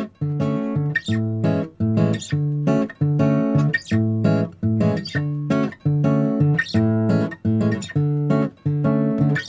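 Background music: a bossa nova track with acoustic guitar playing a steady rhythm of chords, about two a second.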